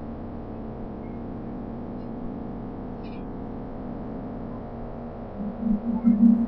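Steady low background hum of a large steel engine room, with a few faint short high chirps. Louder low bursts come in about five seconds in.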